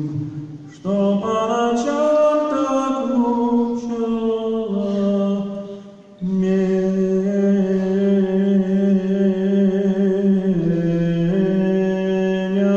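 A man singing long held notes that step from pitch to pitch, breaking off briefly just after the start and again about six seconds in.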